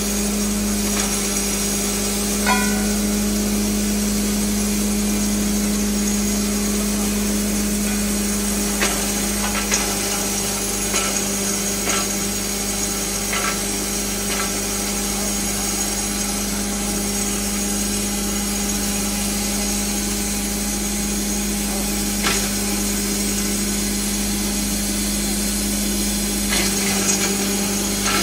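Corn cob grinder machine running steadily with a constant hum while dry corn cobs are fed into its hopper, with a few short sharp knocks along the way.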